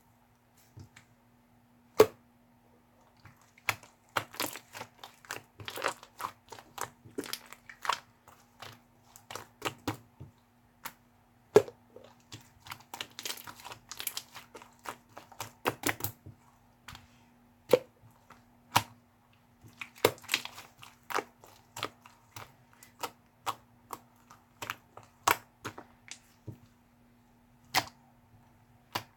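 Slime being squished and pressed by hand, giving irregular sharp pops and crackles, some single and some in quick clusters.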